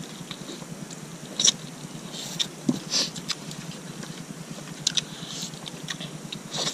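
Close-up chewing and lip-smacking of people eating chicken and rice with their bare hands, with short sharp smacks and clicks scattered irregularly.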